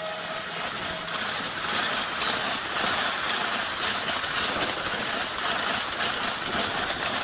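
Steady rushing and rumbling noise of a train passing close at speed, wheels and air rushing together.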